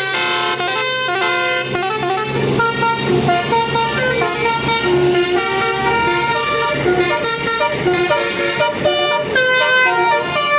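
A bus's 'telolet' multi-tone air horn playing a melody, its notes stepping up and down in quick succession.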